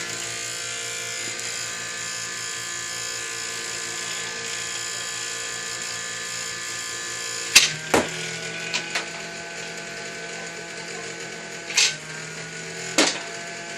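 A 3D-printed ball launcher's DC-motor flywheel drum spins with a steady whine while a stepper-motor drum feeder turns slowly. Several sharp cracks come in the second half as balls are fed through and fired, the whine dipping briefly after the first.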